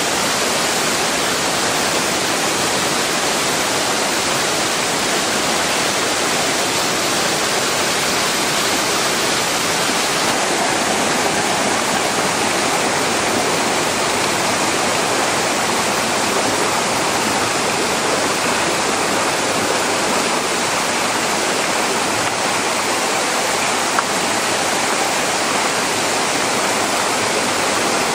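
Amedaki waterfall pouring, a steady, unbroken rush of falling water.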